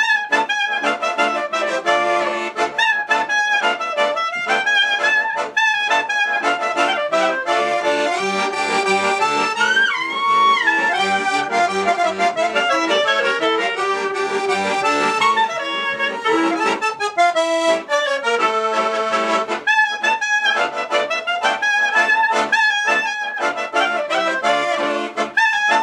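Clarinet and piano accordion playing a klezmer tune together in quick, continuous notes, with a rising pitch glide about ten seconds in.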